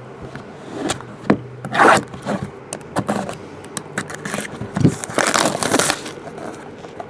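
A cardboard trading-card box and its plastic-cased contents being handled: scraping and rubbing noises, longest about five seconds in, with a few light clicks.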